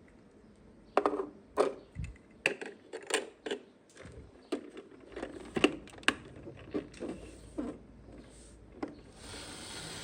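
Small hard plastic toy parts being handled: a string of irregular sharp clicks and taps, about two a second. Near the end a steady hiss begins.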